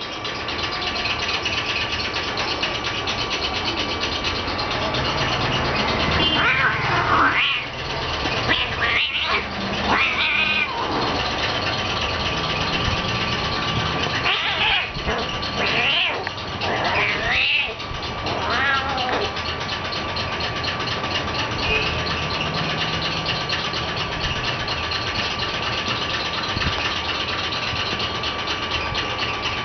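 Kittens meowing: several short calls in two bouts, the first starting about six seconds in and the second about fourteen seconds in, over a steady background hum.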